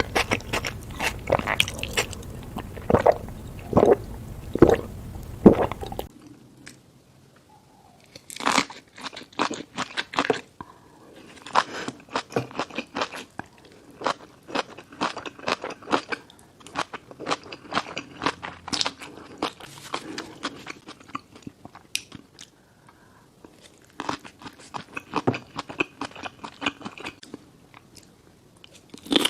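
Close-miked eating: a person biting and chewing food with wet crunching and clicking. About six seconds in it cuts to a quieter recording of another eater chewing in bursts.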